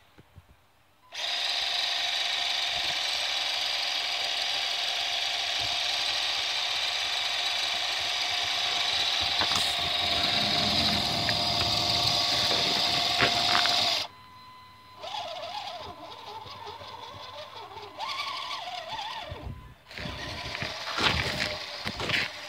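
HG P402 RC truck's electric motor and gearbox whining steadily at a constant pitch for about thirteen seconds, then cutting off abruptly. The rest is a quieter whine that wavers up and down in pitch as the throttle changes, with louder scuffing and motor noise near the end.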